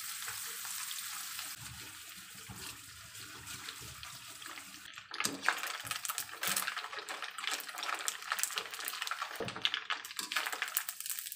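Ikan bilis (dried anchovies) deep-frying in plenty of hot oil in a wok: a steady hiss, turning louder and crackly with sharp ticks from about five seconds in as the anchovies are stirred with a wire skimmer. The frying is near its end, the anchovies crisping.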